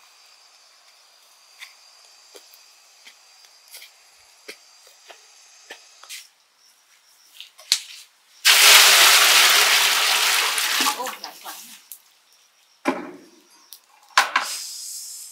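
Water poured from a plastic bucket into a large metal cooking pot set over a wood fire: a sudden loud rush lasting about two and a half seconds that then trails off, followed by two short splashing bumps. Before it, faint footsteps on a dirt path.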